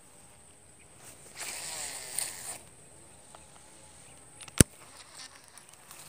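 Baitcasting reel whirring for about a second, then a single sharp click about four and a half seconds in.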